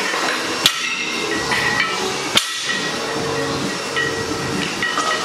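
Loaded barbell with iron plates set down on the floor between deadlift reps: a sharp clang about half a second in and another near two and a half seconds, over steady background noise.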